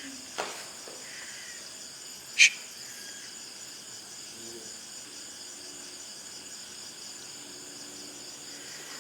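Steady chorus of crickets and other insects chirring. One sharp, high click stands out about two and a half seconds in, with a fainter one just after the start.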